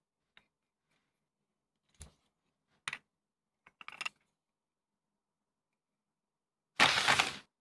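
Scattered small clicks and taps of a Sirui 35mm f/1.8 anamorphic camera lens being handled and its geared rings turned, then a loud, brief rustling burst near the end.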